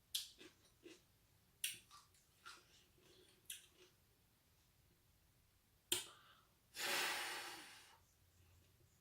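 A person eating pickles close to the microphone: scattered sharp mouth clicks and crunches, then a hiss about a second long seven seconds in, the loudest sound.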